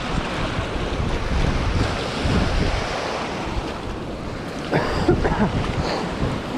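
Wind buffeting the microphone over a steady rush of moving water, with a short louder disturbance about five seconds in.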